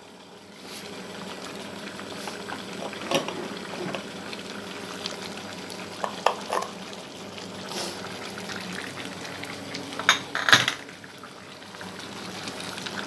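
Squid adobo simmering in its ink, vinegar and sugar sauce in a pan on a gas stove: a steady bubbling hiss, with a few sharp knocks of utensil or pan, the loudest pair about ten seconds in.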